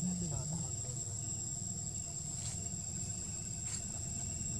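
A steady, high-pitched insect drone of one unbroken tone, over a low background rumble.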